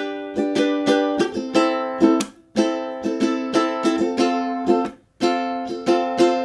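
BWS UK-26 tenor ukulele with a sapele body and nylon strings, strummed in a rhythmic chord pattern. The strings are damped to silence twice, and the last chord is left to ring out.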